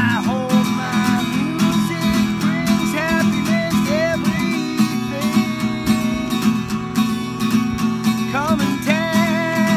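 Acoustic guitar strummed in a steady rhythm, with a man singing a melody over it.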